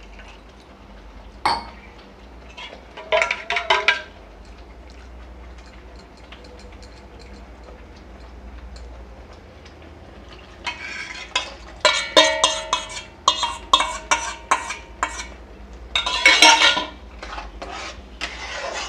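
Steel spoon clinking and scraping against a steel kadhai as thick curry paste is stirred while water is added to it. A few scattered knocks come first; a dense run of clinks with a ringing metal tone begins a little past the middle, and another burst follows near the end.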